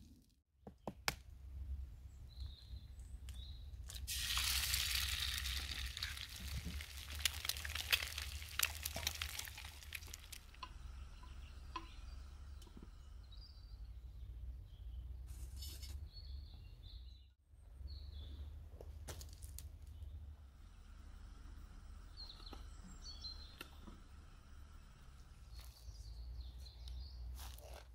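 Food sizzling in a small frying pan over a camp stove's flame for several seconds, followed by quiet woodland ambience with scattered short bird chirps and a few light clicks and knocks.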